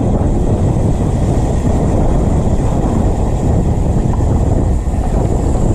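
Steady low rumble of wind buffeting the microphone, with a faint high hiss above it.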